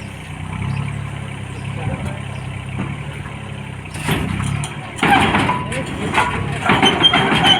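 A heavy vehicle's engine running steadily with a low hum; from about four seconds in, louder irregular clattering and knocking joins it.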